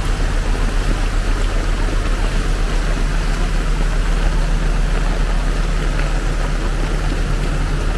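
A motor vehicle's engine running steadily, heard over the rushing of floodwater.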